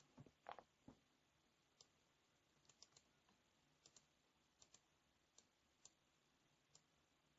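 Faint, scattered clicks of a computer keyboard and mouse: a few close together in the first second, then single clicks every half second or so.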